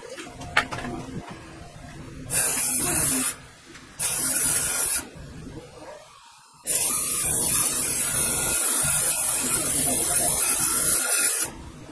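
Aerosol cleaning spray can hissing in three bursts: two short ones of about a second each, then a long one of about five seconds, cleaning oil off a metal part.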